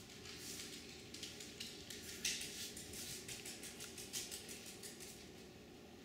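Faint, irregular quick high clicks and ticks, several a second, stopping about five seconds in.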